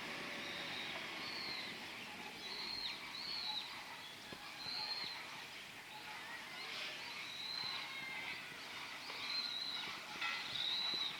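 Birds calling: short, high chirps, each rising and falling, repeated many times over steady outdoor background noise.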